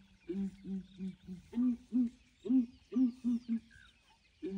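Southern ground hornbills calling with deep, owl-like hoots: a run of four evenly spaced hoots, then a run of about six at a slightly higher pitch.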